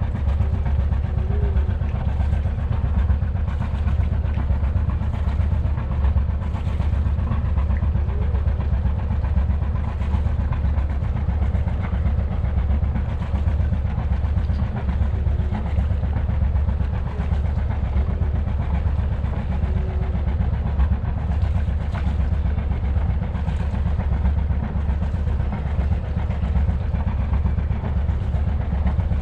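Sailboat's inboard diesel engine running steadily under way, a low, even drone with a fast pulsing beat.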